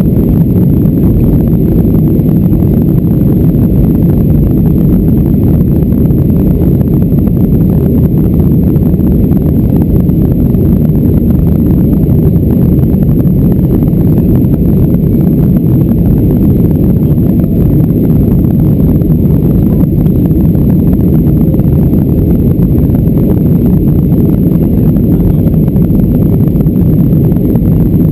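Steady low rumble of a Boeing 737-400 climbing out, heard inside the cabin: the CFM56-3 engines and the rush of air over the fuselage, with a thin steady high whine above it.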